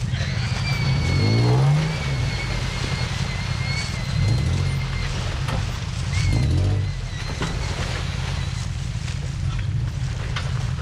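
Off-road vehicle engine running through a rough trail, revving up in a rising sweep about a second in and surging again around four and six seconds, with a steady high-pitched whine over it.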